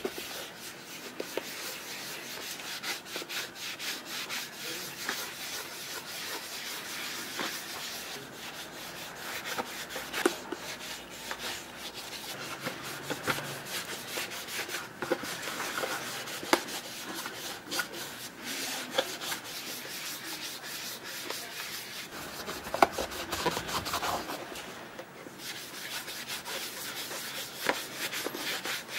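Cotton cloth rubbing and wiping over shell cordovan leather shoes and along their sole edges: a continuous dry scuffing with small clicks from the handling. A sharper knock comes once, about three-quarters of the way through.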